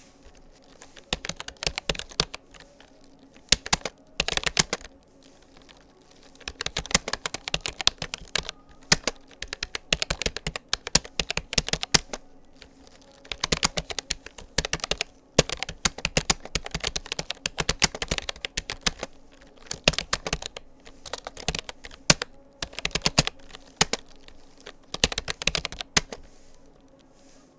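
Touch-typing on a Rapoo computer keyboard: fast runs of key clicks in bursts, broken by short pauses between words and phrases.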